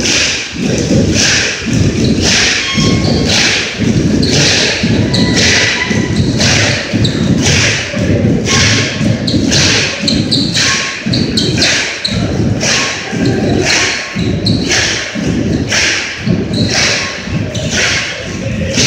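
A crowd on gym bleachers stomping and clapping together in a steady rhythm, low thuds alternating with a clap about once a second, echoing in the hall.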